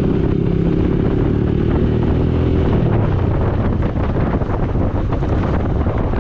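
Yamaha YBR 125's single-cylinder four-stroke engine running loud and bassy through an aftermarket Akrapovic slip-on with the baffle (dB killer) removed, heard from the moving motorcycle. The engine note sinks a little about halfway through, then turns rougher and more uneven, with wind on the microphone.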